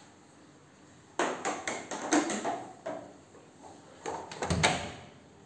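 A bathroom door being handled and shut: a quick run of clicks and knocks starts about a second in, then a heavier thump comes a little before the end.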